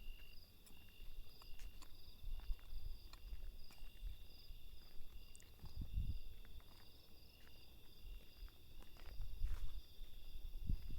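Field crickets chirping in a steady, pulsing chorus of high trills. Irregular low rumbles and thumps lie underneath.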